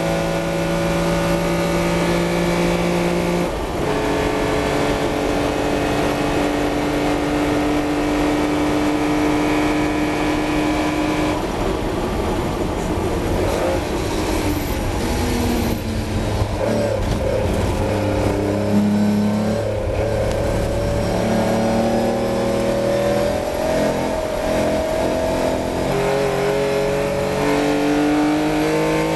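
Austin-Healey 3000's straight-six engine heard onboard at racing speed, holding a steady note on the straight. Through the middle the pitch drops and jumps in steps as the car lifts and changes down for a corner. Near the end the pitch rises as it accelerates again.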